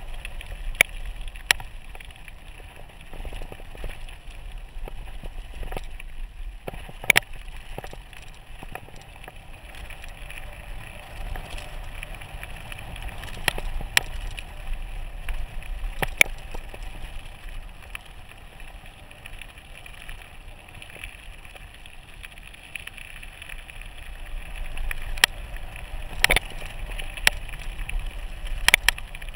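Mountain bike rolling downhill on a loose gravel road: a steady rumble of tyres on gravel, with sharp rattles and knocks from the bike over bumps every few seconds.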